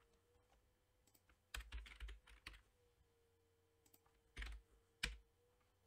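Computer keyboard keystrokes entering values: a quick cluster of key presses about one and a half seconds in, then two single presses near the end, with a faint steady hum underneath.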